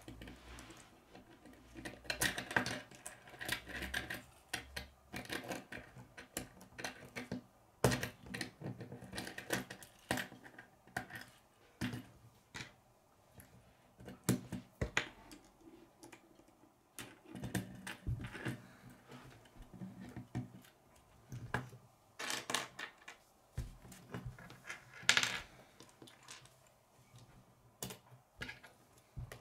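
Plastic K'nex rods and connectors clicking and snapping together as they are handled and fitted, with irregular clicks and rattles throughout and a few sharper snaps.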